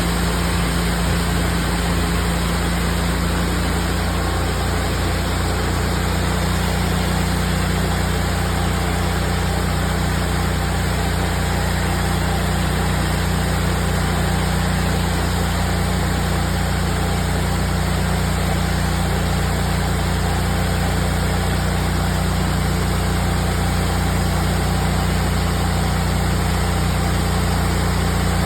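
Hot-water pressure washer running at a steady speed: its Honda iGX800 V-twin gasoline engine drives the high-pressure pump, with a steady rushing hiss over the engine note.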